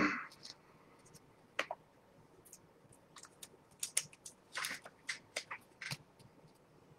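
Trading cards being handled: irregular soft clicks and short scrapes as cards are slid off the pack and set down on a stack.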